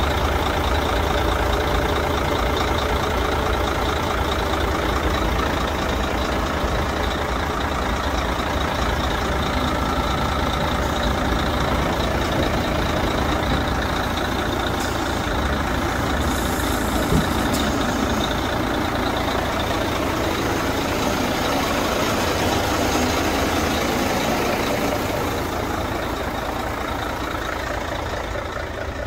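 Mercedes-Benz Actros 2641 tipper truck's V6 diesel engine running steadily while driving the hydraulics that raise the Meiller tipper body on its ram. One short knock about halfway through. The engine grows quieter and duller near the end, heard from inside the cab.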